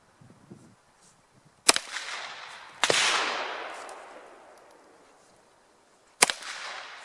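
Three gunshots: two about a second apart, then a third about three seconds later. Each is a sharp crack with a long echoing decay behind it.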